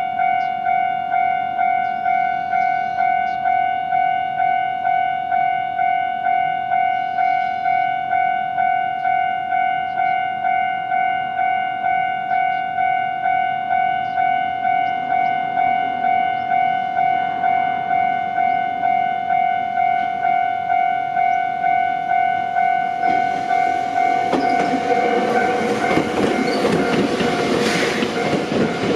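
Electronic level-crossing warning bell ringing in a fast, even, single-pitched beat. From about 23 seconds in, an electric train runs through the crossing, its wheels clacking over the rail joints and growing louder toward the end.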